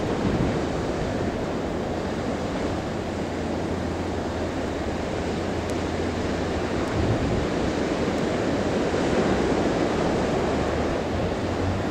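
Surf breaking on a sandy beach: a steady rushing noise, with wind rumbling on the microphone.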